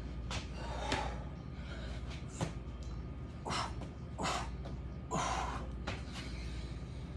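A man breathing hard with the effort of a set of exercise reps: about six short, forceful exhales spaced irregularly, a second or so apart, over a low steady hum.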